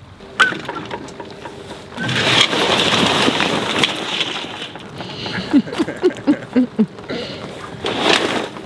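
Sailcloth flapping and rustling as a sail is lowered at the mast, followed a few seconds later by a quick run of about half a dozen short squeaks.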